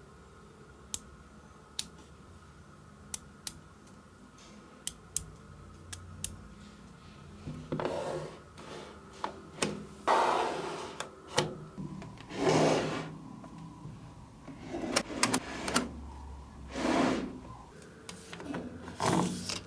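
Small magnetic balls clicking sharply as they snap together, single clicks every second or so at first. From about halfway on, longer, noisier rattles as rows and clusters of balls are pressed and slid onto the slab, with more clicks in between.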